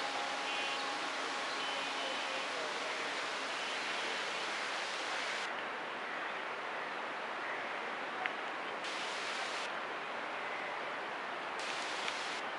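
Steady outdoor hiss, with a single sharp click about eight seconds in.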